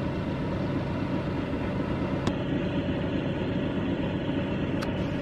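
Oven fan running with a steady hum while baked oats bake inside, with two faint clicks about two and five seconds in.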